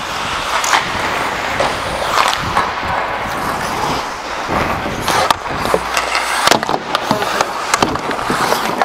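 Ice skate blades scraping and carving across rink ice as a player skates, a steady gritty noise with scattered sharp clicks and knocks.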